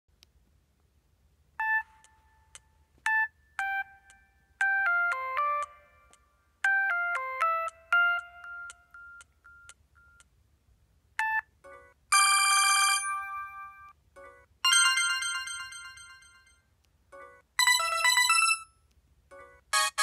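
Samsung SGH-G600 mobile phone playing ringtone previews from its speaker. First comes a short electronic melody of bright beeping notes. After a pause come several brief snippets of other ringtones, one after another, with short blips between them as the list is scrolled.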